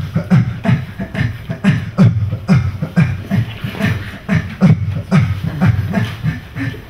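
A man beatboxing into a handheld microphone: a steady beat of deep kick sounds, about three a second, with sharper clicks and hisses between them.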